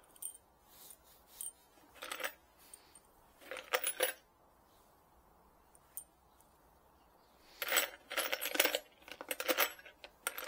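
Small metal screws rattling and clinking against each other in a plastic tub as a hand rummages through them. There are short bouts of rattling about two and four seconds in, and a longer stretch of clinking in the last three seconds.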